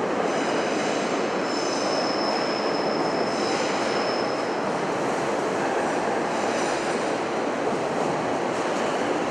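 Electric commuter train moving through an underground station platform, a steady rumble of wheels and motors. Wheels squeal in a thin high tone from about a second and a half in until nearly five seconds in.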